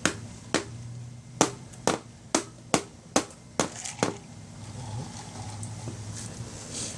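A series of about nine sharp knocks, roughly two a second, that stop about four seconds in, over a low steady hum.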